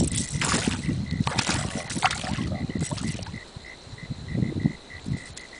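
Hooked traíra (wolf fish) thrashing and splashing in shallow water at the bank as it is landed by hand: a run of quick, irregular splashes for the first three seconds or so, then one more about four and a half seconds in.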